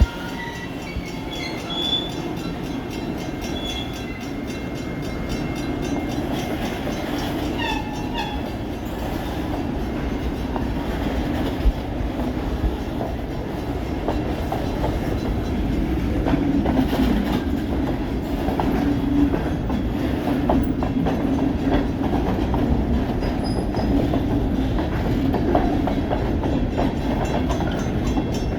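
Pan Am Railways freight train rolling past, with a steady rumble and clatter of wheels on the rails that grows slightly louder toward the end. A few brief high-pitched wheel squeals come near eight seconds in.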